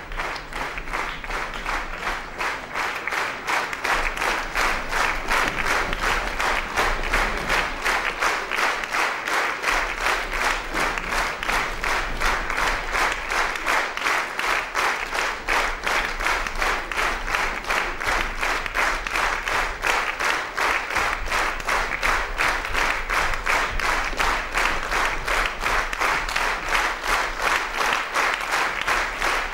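Theatre audience applauding in rhythmic unison, about two to three claps a second. The applause swells over the first few seconds, then holds steady.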